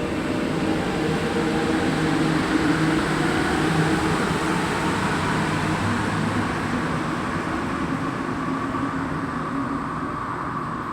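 Santiago Metro Line 5 train running through an underground station: a steady rush of wheels and running gear with motor tones that shift in pitch, slowly fading over the last few seconds.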